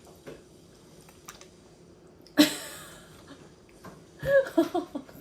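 An infant at his first spoon-feeding gives a few short, fussy vocal sounds near the end, consistent with him disliking the food. Earlier, about halfway through, there is one sudden sharp noisy burst.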